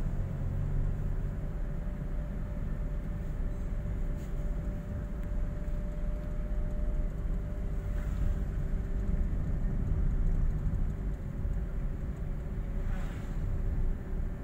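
Car driving, heard from inside the cabin: a steady low rumble of engine and tyres on the road, with a faint steady hum over it.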